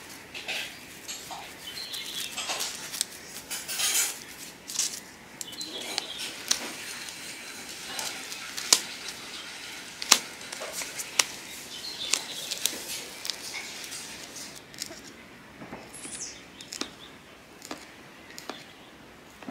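Plastic crates being handled: sharp clacks and knocks of the red plastic crate and its crate lid, with the rustle of foam net sheeting pressed in by hand. A bird chirps twice near the end.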